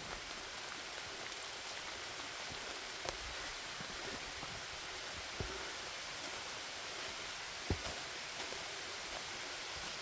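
Faint, steady, even hiss of forest ambience, with a few faint clicks spaced a couple of seconds apart.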